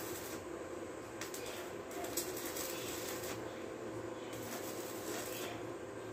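Stick-welding arc crackling and hissing steadily as a coated electrode is run along the sheet steel of a truck cab floor.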